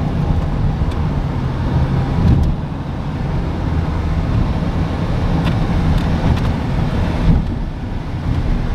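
Steady engine and road rumble inside the cabin of a moving car, with a few faint clicks.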